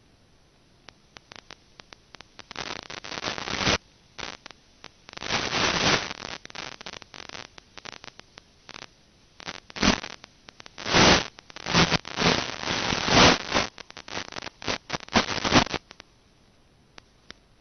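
Crackling static from the audio channel of an analog FPV video link that has no microphone fitted. Scattered clicks and hissing bursts of one to two seconds come and go, thickest in the second half, and die away near the end.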